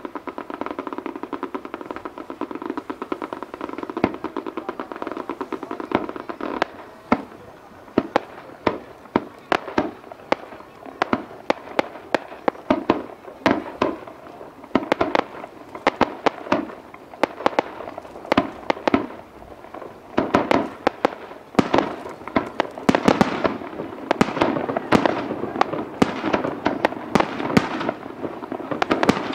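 Aerial fireworks bursting one after another, a long series of sharp bangs with crackle, growing into a dense rapid barrage about twenty seconds in.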